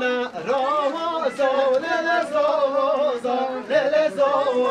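Folk singing accompanying a halay line dance: a singer's voice wavering up and down through an ornamented melody over a steady held note.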